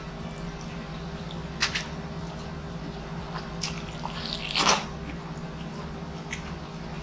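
Close-miked eating sounds of a person eating by hand: a sharp click a little over a second and a half in, then wet biting and mouth sounds as a piece of fried egg goes into the mouth, loudest about two-thirds through, over a steady low hum.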